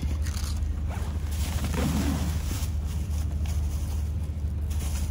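A nylon medical aid bag being unzipped and rummaged through: a zipper pulling open, with irregular rustling and scraping of the packed supplies inside. A steady low rumble runs underneath.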